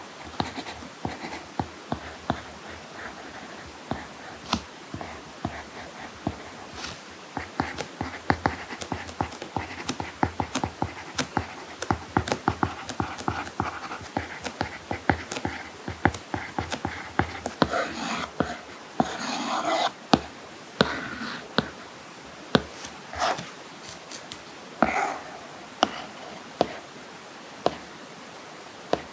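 Apple Pencil nib tapping and scratching on an iPad Pro screen fitted with a paper-like matte screen protector: quick irregular clicks of the hard tip with short scratchy strokes as letters are written, busiest about two-thirds of the way through.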